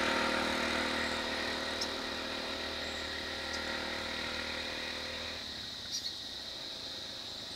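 Motor vehicle engines idling steadily over a high, steady insect buzz. The engine sound stops about five and a half seconds in, leaving the insects.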